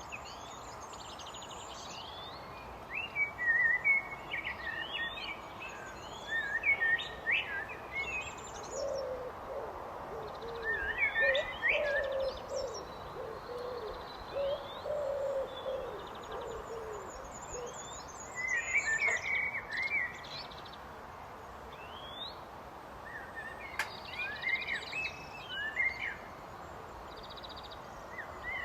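Common blackbird singing: separate warbled phrases every few seconds, each with quick high twittering. A run of lower, repeated notes from another bird comes in the middle. There is a steady hiss of outdoor background noise throughout.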